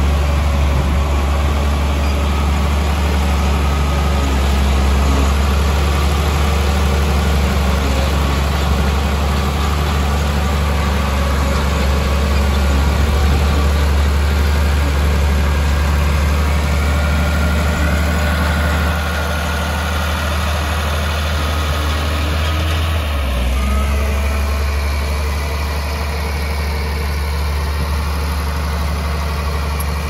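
Heavy diesel engine of earthmoving machinery running steadily with a deep low hum, its note shifting slightly about three-quarters of the way through.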